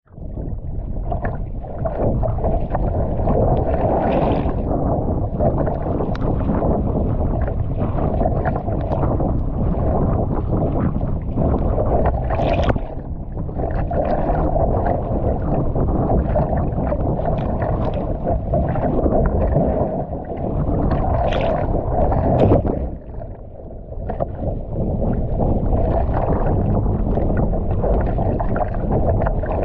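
Wind rushing over the microphone and water splashing against a kayak's hull and off the paddle as it is paddled through choppy sea, the noise dipping briefly twice.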